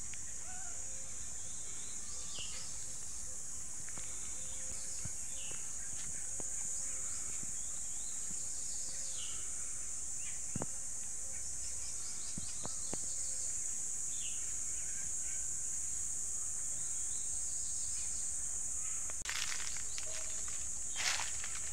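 A steady high-pitched insect drone, with scattered short bird chirps over it. Near the end comes a short spell of rustling and crackling, like footsteps on dry leaves.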